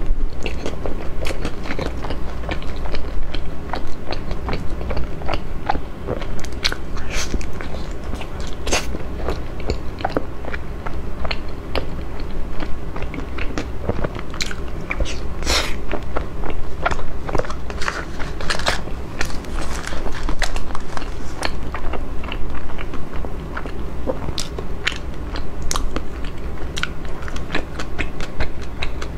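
Close-miked biting and chewing of a chocolate-coated, cream-filled cake, a steady run of wet mouth clicks and smacks.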